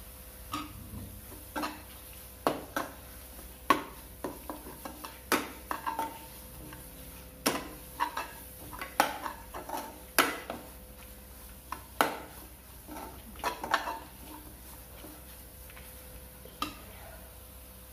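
Perforated steel ladle scraping and clinking against a kadai while stirring a thick masala, with irregular sharp knocks that thin out over the last few seconds.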